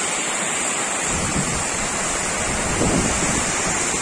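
Heavy rain pouring down steadily with a loud hiss. Strong wind gusts buffet the microphone with a low rumble from about a second in.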